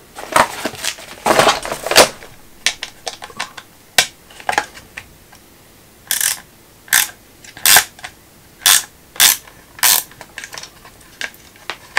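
Small hard clicks and clatter of hand tools and plastic parts. First an irregular rattle as a Wera bit-and-ratchet set is handled. Then, from about six seconds in, a series of sharp single clicks about every half second to second as a Torx screw is worked out of the gimbal's plastic housing with the ratchet.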